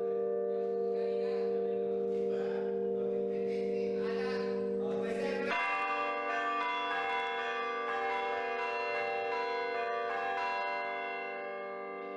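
Balayan church bells ringing, their tones sustained and overlapping. About five and a half seconds in, a new stroke sets off a different set of tones.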